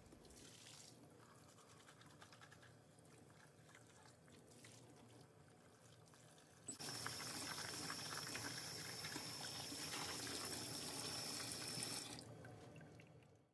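Tap water running into a plastic paint-sprayer FlexLiner cup as it is rinsed out in a utility sink: a faint trickle at first, then about seven seconds in the flow turns up to a loud steady rush with a thin high whistle over it, easing off near the end.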